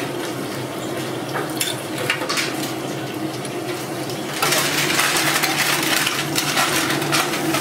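Korean cheese corn dogs deep-frying: hot oil sizzling and popping, getting louder and denser about four and a half seconds in, with light metal clinks of tongs against the wire fryer basket, over a steady low hum.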